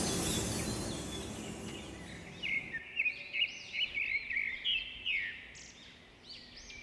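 The tail of background music fades away, and then a small bird chirps: a run of quick, high chirps, two or three a second, growing fainter near the end.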